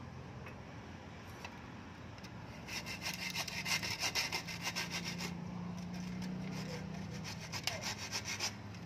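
Hacksaw cutting through the plastic end of a broom handle with quick back-and-forth strokes. The sawing starts about three seconds in, eases off briefly midway, then picks up again near the end.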